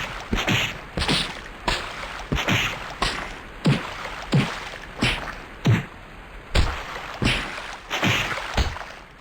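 Sneezes one after another in quick succession, about a dozen short sneezes roughly two-thirds of a second apart.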